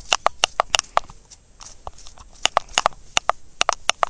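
Quick, sharp taps on a horse's hoof, about five a second, each with the same short ring, pausing for about a second and a half partway through.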